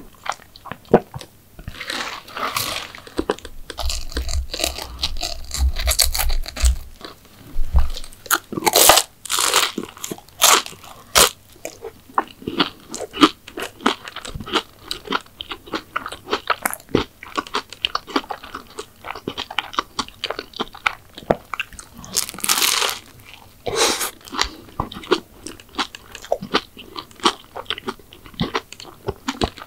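Close-miked eating of McDonald's sweets: repeated crunchy bites into crisp pastry and wet chewing, with clusters of sharp, loud crunches about nine seconds in and again near twenty-three seconds.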